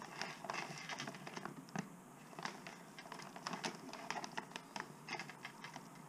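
Clear plastic parts bags and bubble wrap crinkling and rustling as they are handled, with many small irregular clicks and crackles.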